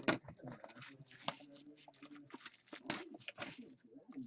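Shrink-wrap plastic crinkling and tearing as it is pulled off a sealed trading-card box, with the cardboard box rubbing and tapping as it is handled: a quick run of short rustles and taps.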